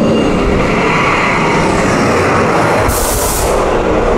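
Test Track ride vehicle rumbling steadily along its track, heard from on board. A short hiss comes about three seconds in.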